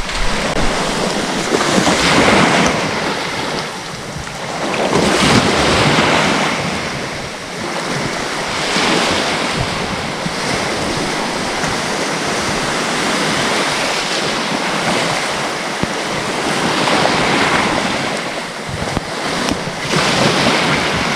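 Sea waves surging in and washing back, swelling about every three to four seconds, with wind buffeting the microphone.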